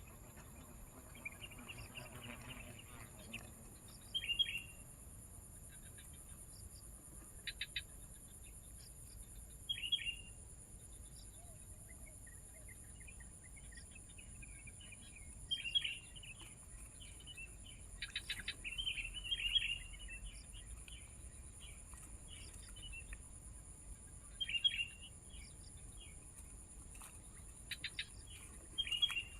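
Sooty-headed bulbuls calling in short, bright chirps that come in bursts every few seconds, over a steady high-pitched hum.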